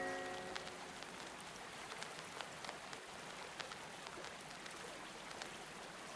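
Steady rain-like water ambience with scattered small ticks and crackles, as the last notes of a blues record die away in the first half second.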